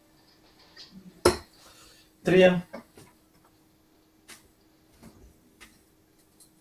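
Steel-tip darts at a dartboard: a sharp knock about a second in, then a louder clatter with a brief voice in it, followed by a few light metallic clinks as the darts are handled.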